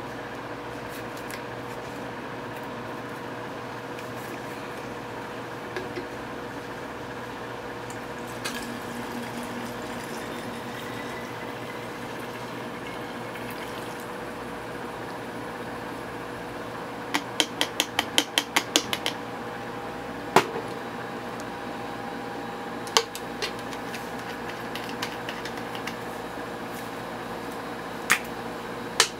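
Perfume being poured through a funnel into a clear plastic spray bottle, with glass and plastic bottles clinking as they are handled: a quick run of about ten clicks a little past the middle and a few single clicks after it, over a steady background hum.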